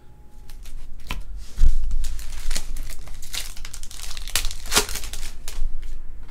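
Crinkling and tearing of a trading-card pack wrapper being opened by hand, with a dull thump about one and a half seconds in.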